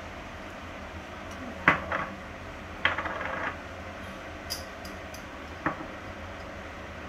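Kitchen things knocking and clinking against one another: two sharp knocks about a second and a half in, a short rattling clatter around three seconds, and a last clink near six seconds, over a steady low hum.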